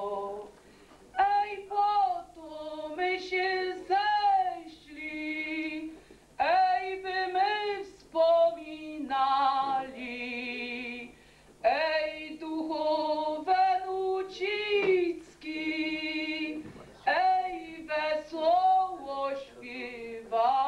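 A woman singing solo and unaccompanied, in short phrases separated by brief breaths, several ending in long held notes with vibrato.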